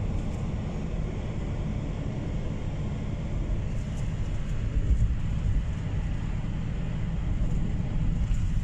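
Steady road and engine noise of a car cruising at highway speed, heard inside the cabin as a low rumble, swelling slightly about halfway through.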